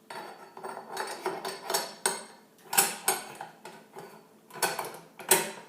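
Metal parts of a Remington Fieldmaster 121 pump-action rifle clicking and clacking as it is put back together. A run of small clicks and rattles comes first, then several sharper metallic clacks, the loudest near the end.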